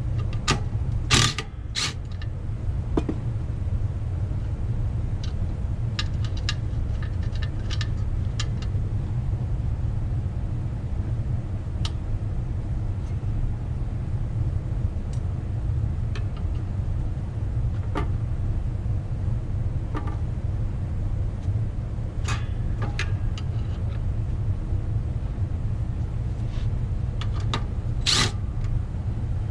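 Scattered metallic clicks and clinks of a wrench working small nuts and bolts off a car's brake backing plate, over a steady low hum. The clicks cluster in the first couple of seconds, and one sharp one comes near the end.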